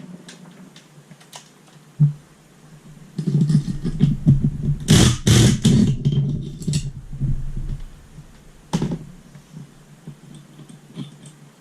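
Hand tool working the flywheel nut off a Honda CRF450 engine: a few scattered clicks, then about four seconds of dense rapid metallic clattering as the nut is loosened, loudest midway, followed by a single sharp knock.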